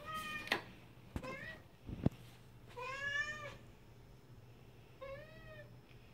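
A cat meowing four times in short arched calls, the third one the longest, with a single sharp knock about two seconds in.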